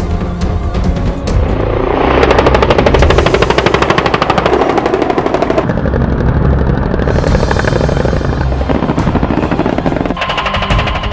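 Rapid automatic gunfire in a long burst starting about two seconds in, mixed with music.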